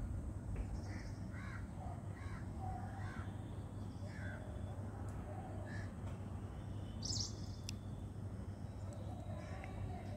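Crows cawing, a quick series of short calls in the first half and a few more later, over a steady low hum.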